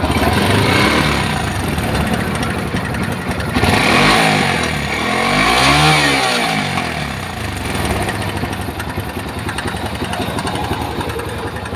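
Bajaj Pulsar AS150's single-cylinder engine running, revved up and let back down twice in the middle. The engine sounds very bad, which the mechanic puts down to a badly worn timing chain.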